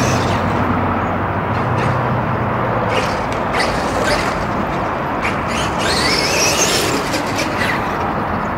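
Brushless electric motor of a Traxxas X-Maxx RC monster truck running on a dirt track. Its whine rises in pitch as it speeds up about six seconds in, over a steady rush of noise with scattered clicks from the truck on the dirt.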